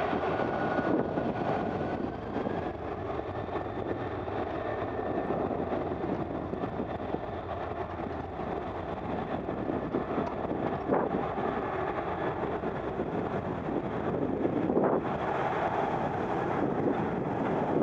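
Boeing 747 freighter's four jet engines running as the aircraft moves on the runway: a steady jet rumble with a faint whine near the start. Wind buffets the microphone.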